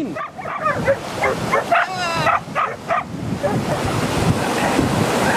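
A dog barking in short calls, with one longer wavering call about two seconds in, over the steady wash of small waves and splashing in shallow sea water.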